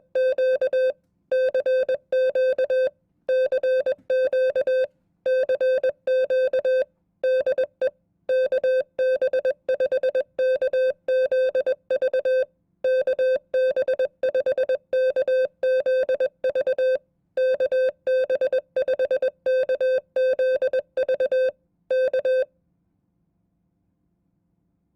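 Morse code (CW) sent at 20 words per minute: one steady beep tone keyed on and off in dots and dashes, in groups of characters separated by short gaps. It is a sample amateur-radio contact (QSO) like those once sent in FCC Morse code exams, and the keying stops about 22 seconds in.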